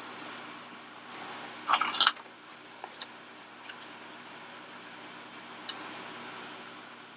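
Light clicks and clinks of small parts and tools being handled on a workbench, the loudest cluster about two seconds in, over the steady hiss of a running fan.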